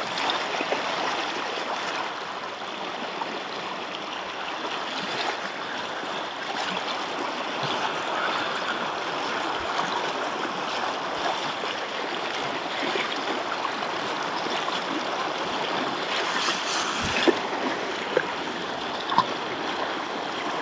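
Floodwater over a road flowing steadily, an even rushing sound, with a few brief sharp knocks near the end.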